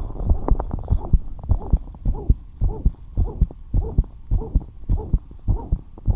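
Human heartbeat, fast and regular: a steady run of low, dull beats from a heart with a murmur.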